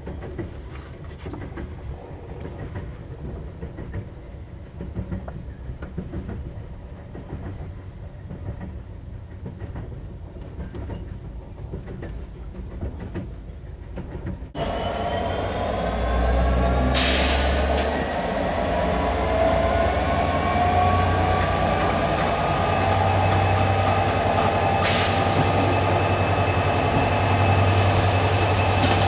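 Caledonian Sleeper train heard from inside the carriage: a steady rumble of wheels on rails at first. About halfway through it turns suddenly louder, with squealing wheels and brakes and a low hum as the train draws into a station, broken twice by a brief hiss.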